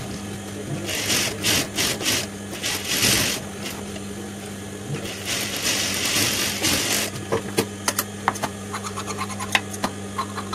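Industrial sewing machine stitching in two bursts of a second or two, its motor humming steadily throughout. After the second burst comes a run of light clicks and taps.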